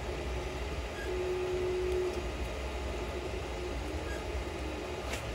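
Steady low hum and fan noise from a powered-on Creality CR-10 3D printer standing idle, with a faint short steady tone about a second in.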